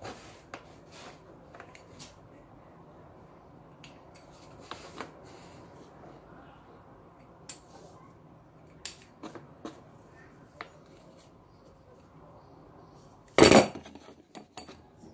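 Hands and a metal pizza-cutter wheel working pastry dough on a table: light scattered clicks and taps, then a loud clatter on the table about thirteen seconds in and another knock at the very end.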